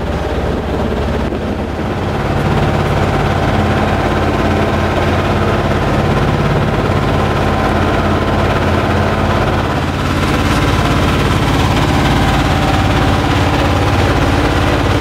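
Sailing yacht's inboard engine running steadily under way, its note firming up about two seconds in.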